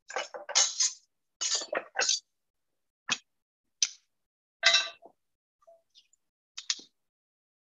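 Metal tongs clacking together and knocking against a cast-iron grill pan as a seared rack of meat is turned and positioned: a quick run of sharp clinks and knocks in the first two seconds, then single clinks about a second apart.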